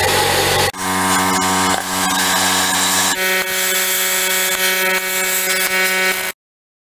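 Handheld plasma cutter cutting steel plate: a loud hiss of air and arc with a steady buzzing tone, which changes character twice and then stops abruptly about six seconds in.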